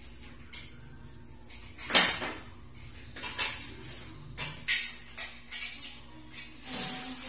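Metal clinks and knocks from the steel parts of a dish drainage rack being handled and fitted together, a string of separate strikes with the loudest about two seconds in.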